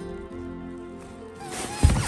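Background music with a steady melody; about one and a half seconds in, a loud burst of crinkling plastic air-cushion packing and a thump against the cardboard box as a cat scrambles out of it.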